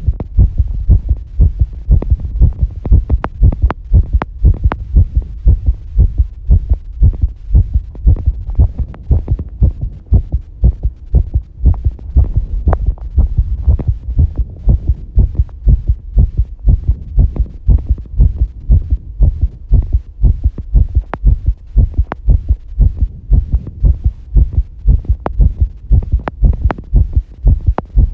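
A person's heartbeat, recorded up close: a steady, even run of low thumping heart sounds.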